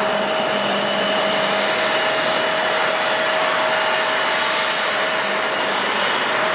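Airliner engines running with a steady rushing roar and a constant whine, and a thin high whine that climbs in pitch from about two-thirds of the way in.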